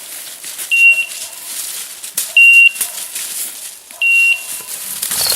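A hunting dog's beeper collar sounding three short, high electronic beeps about one and a half seconds apart, each followed by a fainter lower tone.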